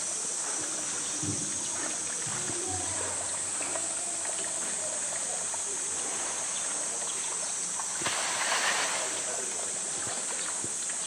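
Water sloshing and lapping as a polar bear swims along the pool's rock wall, with a louder splash about eight seconds in as it surges toward the edge.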